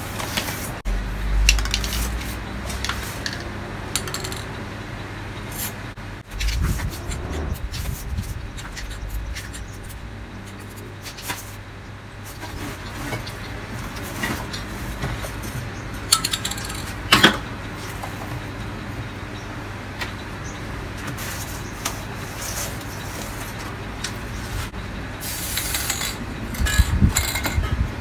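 Metal spray paint cans and metal masks being picked up and set down, clinking and knocking now and then, with a louder cluster of clatter near the end.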